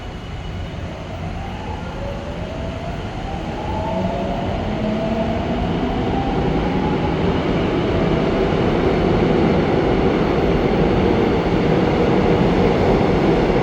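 Suin-Bundang Line Class 351000 electric train pulling out of a station and accelerating. The traction motors' whine rises in pitch in several glides over the first few seconds, while the running noise of the cars grows steadily louder.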